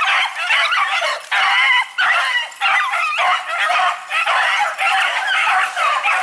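A pack of beagles baying in full cry, several voices overlapping without a pause: the hounds running a rabbit's track.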